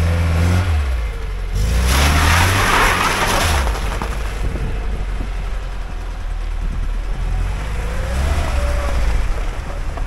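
Lada Niva VAZ-21213's four-cylinder petrol engine revving as the car pulls away in first gear on a snowy, icy track, rising in pitch about half a second in, again around two seconds in, and near the end. A loud rushing noise is heard from about two to three and a half seconds in.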